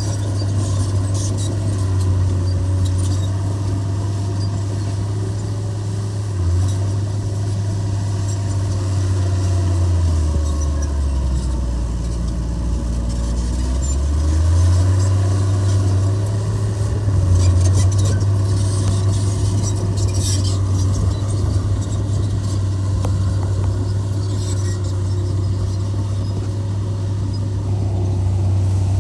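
Heavy diesel engine of construction machinery running. Its pitch sags about ten seconds in and climbs back up around fifteen seconds, as it is loaded and then revved again. Scattered high rattles and clanks come and go over it.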